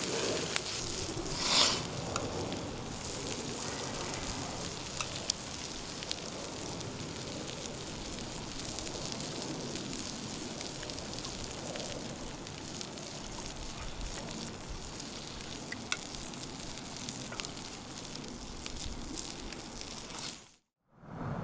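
Food sizzling in a pan, a steady frying hiss with scattered sharp clicks and one louder noise about a second and a half in. The sound cuts out abruptly near the end.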